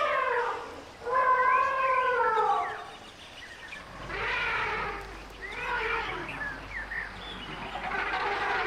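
Elephants trumpeting: a run of loud, pitched calls, several sliding down in pitch, with calls overlapping one another near the end.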